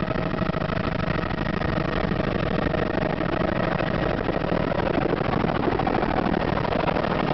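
Helicopter engine and rotor noise heard from inside the cabin: a steady, loud rush with a fast beating from the rotor blades, as the helicopter descends toward its landing spot.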